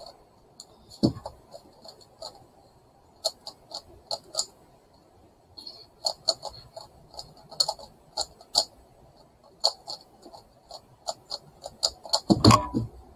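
Plastic megaminx faces being turned fast by hand: irregular sharp clacks, often in quick runs of several, with a heavier thump near the end.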